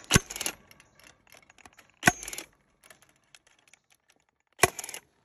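Milwaukee cordless fence stapler firing three times, driving fence staples over wire into wooden posts: three sharp shots about two and a half seconds apart, each with a brief metallic rattle after it.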